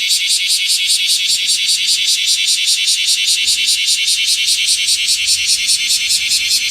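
Loud chorus of cicadas: a high-pitched buzzing that pulses evenly several times a second without a break.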